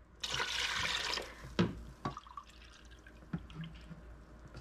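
White vinegar being poured and splashing into a pot of water for about a second, followed by a few light clinks and knocks of the measuring cup and jug.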